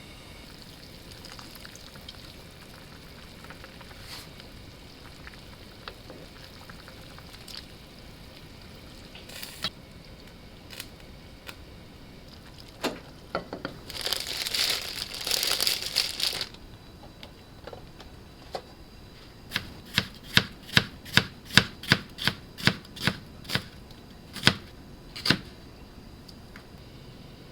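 Knife chopping on a cutting board: about a dozen quick, evenly spaced strokes, roughly two a second, in the second half. A few seconds of rustling noise come before it, with scattered light kitchen clicks and knocks.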